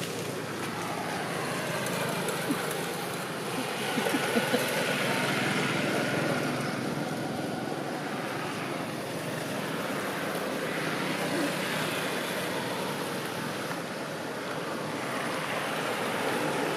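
Outdoor road-traffic noise from passing vehicles, a steady rush that swells and fades every few seconds, with a few small clicks about four seconds in.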